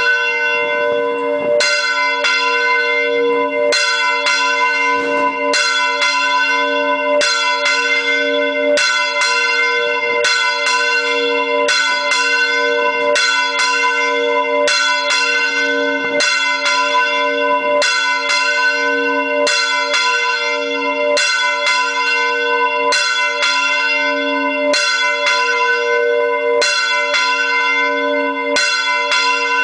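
A large church bell swinging full circle on its counterweighted wooden headstock, its clapper striking about once every one and a half to two seconds. Each stroke rings on into the next, keeping a continuous bell tone.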